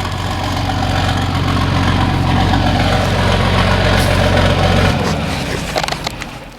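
Hot-rodded John Deere 4430 tractor's diesel engine running as the tractor drives up, growing louder, then throttled back about five seconds in.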